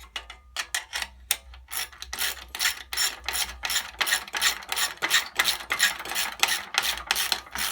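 Ratchet wrench clicking in a steady run of sharp clicks, several a second, as the nuts are run down on the 1/4-inch fender bolts.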